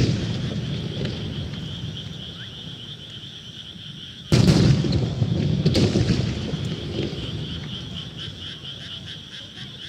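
Starmine fireworks bursting: the rumble of the previous volley fades away, then a heavy boom about four seconds in is followed by a quick string of cracks and bangs, whose echoing rumble slowly dies down. A steady high chirring chorus runs underneath.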